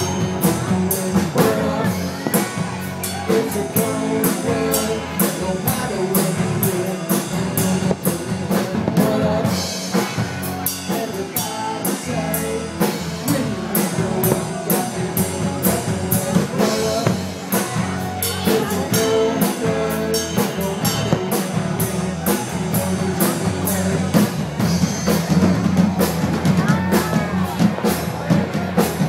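Rock music playing, with a steady drum beat and a singing voice.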